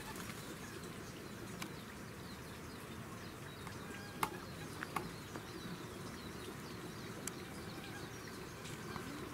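Outdoor ambience: a steady background hiss with faint, scattered bird chirps, and two sharp clicks about four and five seconds in.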